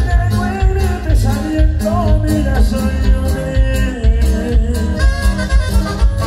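Live norteño band music with a steady bass beat under a melody line.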